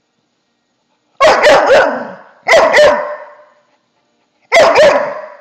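Golden retriever 'talking': three loud bouts of barking vocalizations, each a quick run of short barks. They start about a second in, again halfway through, and near the end.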